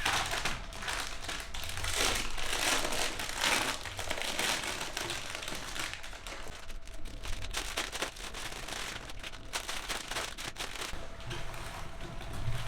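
Meat grinder grinding colored mud: a dense, continuous crackling with many small sharp clicks, over a faint steady hum.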